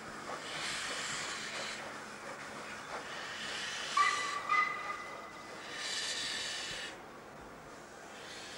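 South African GMAM Garratt steam locomotive hissing steam in surges as it moves slowly off. About four seconds in, a short double whistle toot sounds, the loudest moment.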